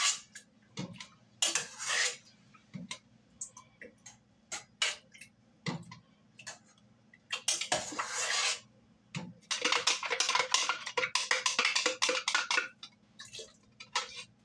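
Metal utensil knocking and scraping against a cooking pot: scattered clinks and short scrapes, then about three seconds of rapid clattering from around ten seconds in.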